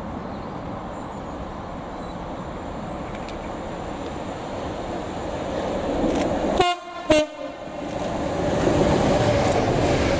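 Diesel locomotive approaching at speed, its rumble growing, sounds two short blasts on its horn about two-thirds of the way in, then passes close with a loud rush of engine and wheels.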